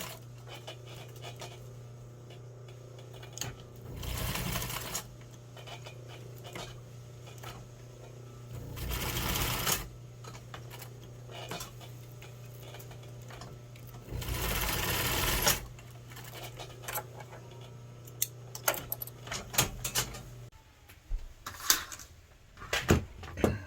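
Electric sewing machine stitching Velcro squares onto the side seam of a pair of pants in three short runs of about a second and a half each, with a steady low hum between them. Near the end the hum stops and a series of sharp clicks and taps follows.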